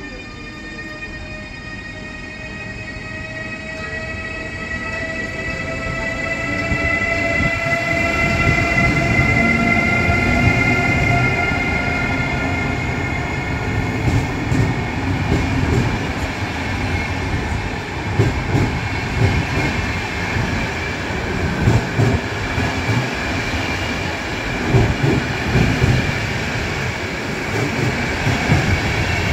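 Siemens ES64U4 (EU44) electric locomotive and train pulling away from a stop: several whining tones from the traction equipment rise slowly in pitch as it accelerates and grows louder. Then the passenger coaches rumble past, with the wheels knocking over the rail joints.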